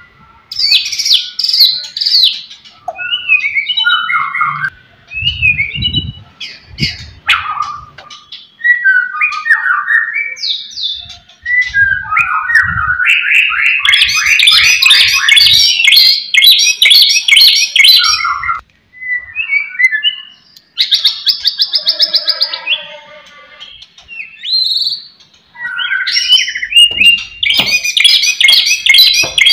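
White-rumped shama (murai batu) singing loud and full: varied phrases of whistles, glides and fast runs of repeated notes, in bursts with short pauses. A few low thumps come about five to seven seconds in. This is the aggressive territorial song that provokes rival male shamas who hear it.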